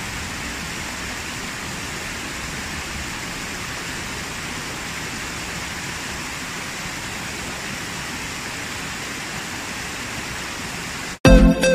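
Steady rush of a waterfall pouring over rocks. Near the end it cuts off abruptly into loud electronic music.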